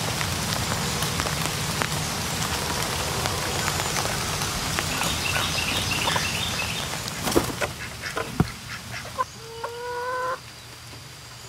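Steady rain falling on a wet tarp cover, with a couple of sharp taps about two-thirds of the way through. Near the end a chicken gives one drawn-out call about a second long.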